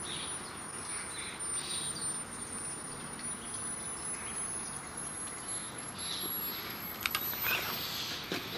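Distant birds chirping now and then against a steady hiss. A few sharp clicks come about seven seconds in.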